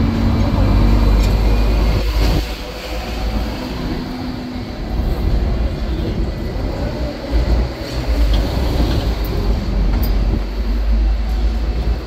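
Hong Kong double-decker electric tram running on street rails, heard from on board: a steady low rumble of wheels on track, with a single knock about two seconds in.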